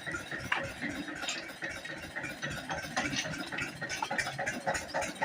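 8 hp single-cylinder diesel pump-set engine running at a steady rhythm, about five to six beats a second, with a rattle.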